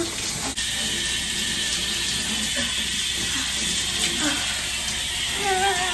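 Shower spray running steadily, an even hiss of falling water. A few short wordless vocal sounds break over it, with a wavering one near the end.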